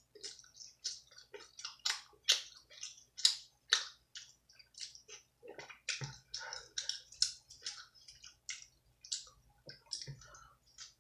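Close-miked wet chewing and mouth smacking while eating pizza: a dense run of short, irregular squelches and clicks, several a second.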